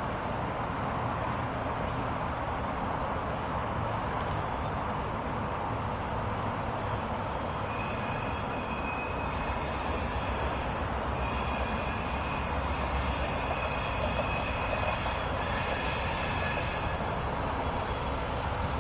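Amtrak passenger train rolling slowly through switches onto the platform track, a steady rumble of wheels on rail. From about eight seconds in, a high-pitched wheel squeal comes and goes for around nine seconds.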